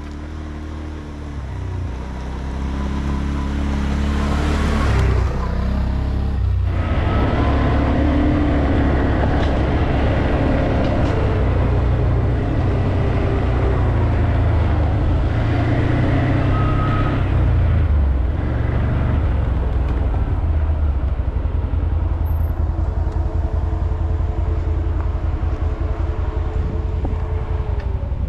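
ODES 650 Pathcross ATV engine running while riding a rough dirt track, its note rising and falling with the throttle and getting louder over the first few seconds. In the last third it settles into a steadier, lower note.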